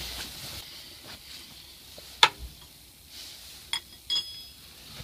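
A few sharp metallic clicks and clinks of tools and metal fittings being handled, the loudest about two seconds in, then two short ringing clinks near the end.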